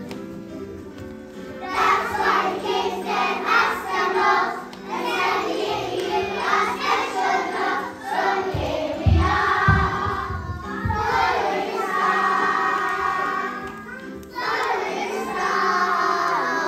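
A group of young children singing a song together over musical accompaniment, with a few low thumps about halfway through.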